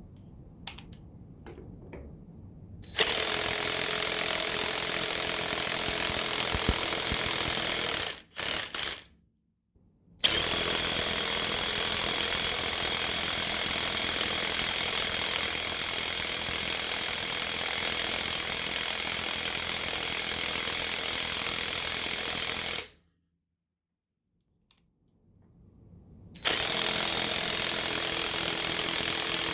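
Craftsman V20 cordless impact wrench (brushed motor) hammering in long runs. It goes for about five seconds, gives two short blips, then runs for about thirteen seconds, and starts again near the end.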